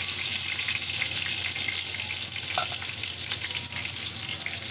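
Minced-meat seekh kebabs shallow-frying in cooking oil in a pan: a steady sizzle with fine crackling.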